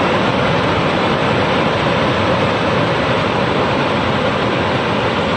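Fast-flowing floodwater rushing steadily and loudly.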